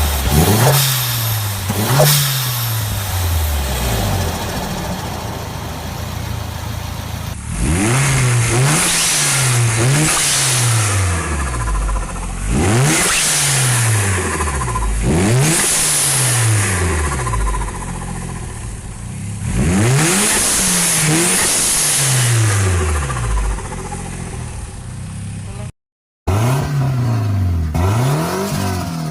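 Turbocharged car engines revved in repeated quick blips, about a dozen rises and falls in pitch, each lift-off bringing the fluttering chatter of the turbo ("sutututu"). The sound switches abruptly to a different car about 7 seconds in and again near the end.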